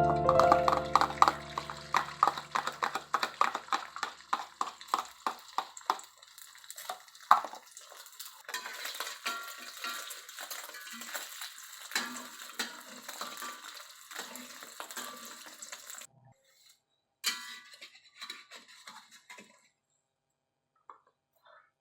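A metal utensil clinking and scraping against kitchenware in a quick, irregular run of taps. The taps stop about 16 seconds in, and a few scattered taps follow.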